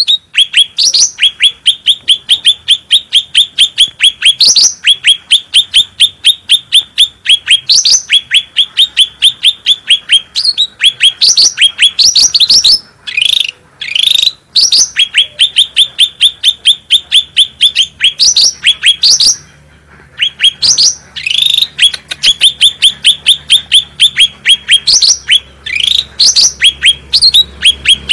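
A cucak rante bird singing a loud, fast run of short downward-sweeping chirps, about four or five a second, broken by a few brief pauses.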